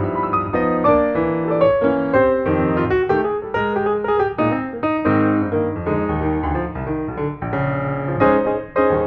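Background piano music, a steady flow of notes with several new notes each second.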